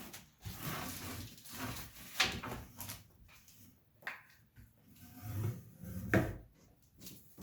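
Package being handled and opened: rubbing and scraping, with a sharp knock about two seconds in and another around six seconds.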